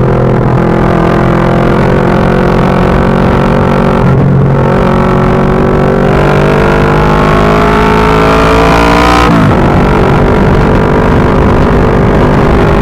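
Kawasaki ER-6n parallel-twin engine running a straight pipe with no muffler, loud under way. It holds steady, then the revs climb for about five seconds. The pitch drops sharply at an upshift about nine seconds in, and the engine keeps pulling.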